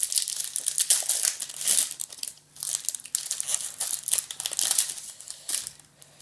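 Foil trading-card packet being torn open and crinkled by hand, a crackly rustling that comes and goes in spells with short pauses.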